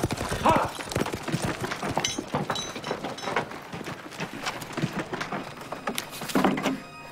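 Horses' hooves clattering irregularly, mixed with knocks and thuds. A short, louder cry rises about six seconds in.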